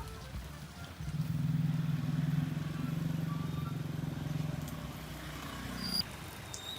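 Motorbike engine running steadily with a low even hum, starting up sharply about a second in and cutting off about six seconds in.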